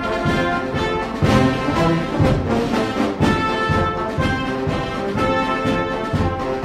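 Orchestral background music led by brass, with sustained chords over a low beat about once a second.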